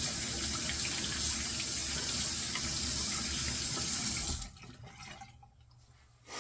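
Bathroom sink tap running steadily, shut off about four seconds in, followed by quiet small handling sounds.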